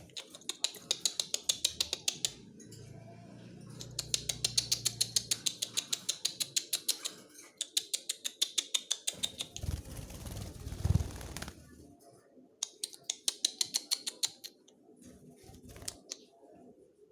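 Small pet bird chirping in fast runs of short, high chirps, about seven a second, in three bursts, with a few dull handling thumps in the middle.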